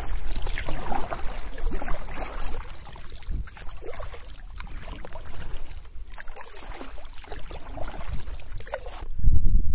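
Paddle strokes splashing from an inflatable canoe being paddled, with water sloshing irregularly. Near the end a louder low rumble takes over.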